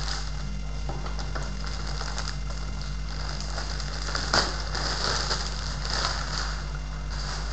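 Clear plastic bag crinkling and rustling as it is pulled off a film projector, with a sharp crackle about four seconds in and more rustling until near the end, over a steady low hum.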